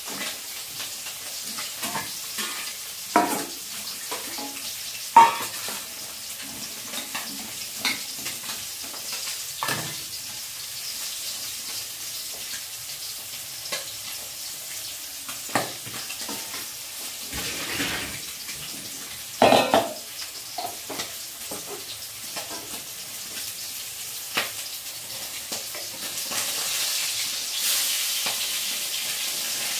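Oil sizzling in a steel wok on a gas stove, with scattered clinks and knocks of a steel bowl and utensils. Near the end the sizzle grows louder as food goes into the hot oil.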